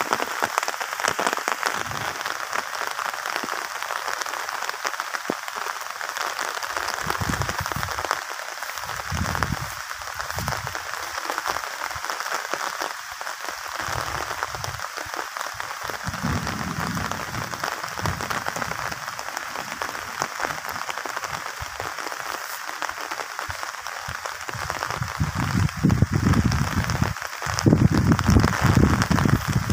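Steady outdoor hiss with irregular low rumbles that come and go and grow heavier near the end.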